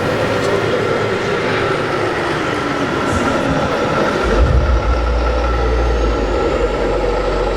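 Engine sounds from RC model trucks running on a course, a steady mechanical hum with a deep low rumble joining about four seconds in.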